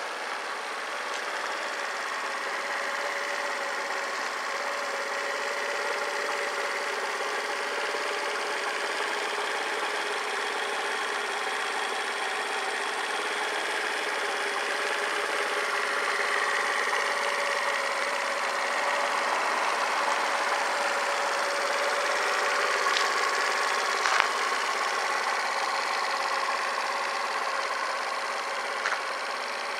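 Suzuki Address V50 scooter's single-cylinder 50 cc engine idling steadily, a little louder midway, with a few sharp clicks near the end.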